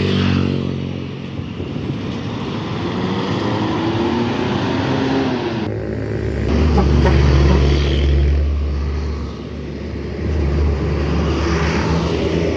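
Bus engines and road traffic passing by. A deep engine rumble swells about halfway through and fades again after a few seconds, and an engine note rises and falls earlier on.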